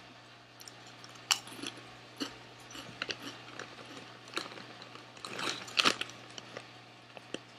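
Crunching and chewing of Lay's Baked barbecue potato chips, a series of sharp crackles. The foil chip bag crinkles as a hand reaches in, the loudest part, about five and a half seconds in.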